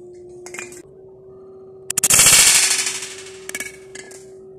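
A 5.5 mm spring air rifle firing a hollow-point pellet into a butane gas can: a sudden loud crack about two seconds in, then a buzzing, rattling noise that fades over about a second and a half.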